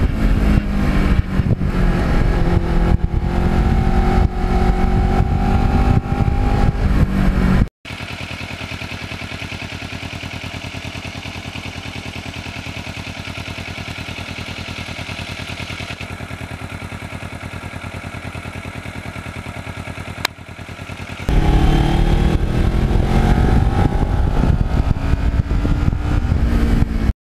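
Kawasaki Ninja 650R parallel-twin engine heard from the bike while riding, pulling with rising revs. It drops to a quieter, steady running sound for a long stretch in the middle, then comes back loud with revs climbing again.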